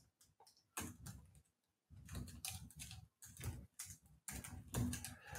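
Computer keyboard typing: a faint, irregular run of key clicks, a few about a second in and then a steadier patter from about two seconds on.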